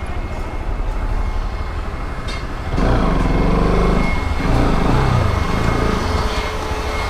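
Bajaj Pulsar RS200 motorcycle's single-cylinder engine running as the bike rolls slowly, its note getting louder and rising and falling in pitch for a few seconds from about three seconds in.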